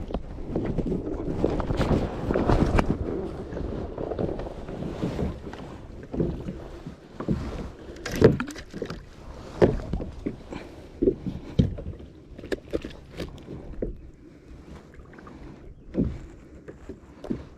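Wind on the microphone and water noise around a small fishing boat for the first six seconds or so, then a series of scattered knocks and clicks, the loudest about eight seconds in.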